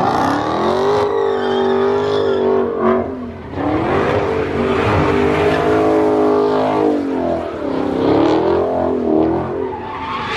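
Car doing donuts in its own tyre smoke: the engine is held at high revs that swing up and down, and the rear tyres squeal and hiss as they slide on the pavement. The revs drop briefly about three seconds in, then climb again.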